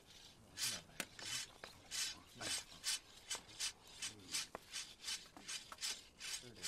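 A knife blade being sharpened on a whetstone: rhythmic rasping strokes, about two a second.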